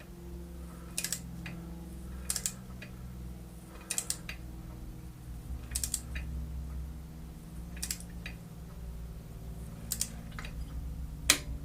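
Small ratcheting torque wrench clicking in short spurts every second or two as a spark plug is tightened down, with two sharper clicks near the end as the plug comes up to torque. A steady low hum underneath.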